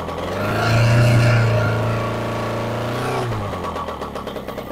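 Rotax 185 two-stroke engine on a run-up: the throttle is opened and the engine revs up and holds, then drops back to an even idle near the end.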